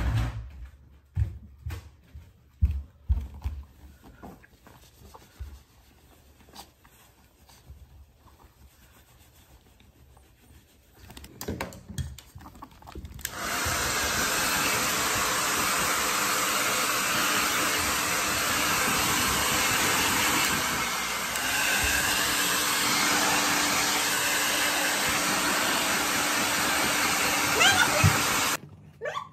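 A few thumps and rustles of handling, then a hand-held hair dryer switches on about halfway through and blows steadily over a small dog before cutting off suddenly near the end.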